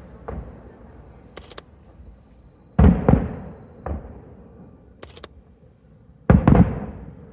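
Aerial firework shells bursting in the sky, each a sudden deep boom with a long echoing tail. One light burst comes just after the start, then a loud double burst around three seconds with another a second later, and another loud double burst near the end. Two short high clicks come between the bursts.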